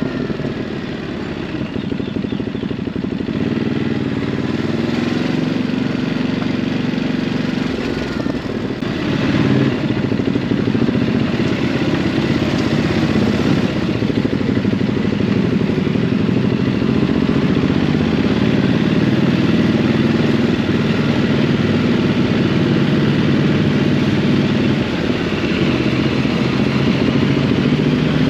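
Stock Ducati Hypermotard 950 L-twin engine running as the bike is ridden. The engine note shifts as speed changes and grows slightly louder about nine seconds in.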